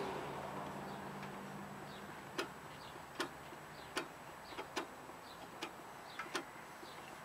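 A passing vehicle fades away over the first two seconds. Then a run of short, sharp clicks, about one a second, comes from hand work on the lawn tractor's engine, with faint bird chirps.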